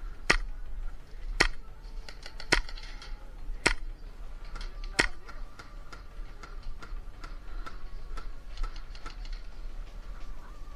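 Five sharp clicks about a second apart, followed by fainter, quicker ticking.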